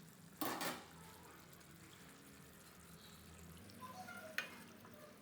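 A pan lid lifted off a pan of chicken kurma: one short rattle about half a second in, then near silence with a few faint clinks near the end.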